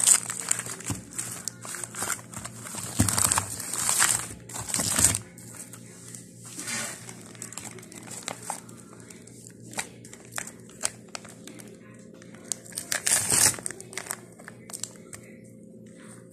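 Clear plastic packaging of frozen sausages crinkling as the packs are handled. It comes in loud bursts through the first five seconds, again briefly twice later, with scattered small clicks between. A faint steady hum runs underneath.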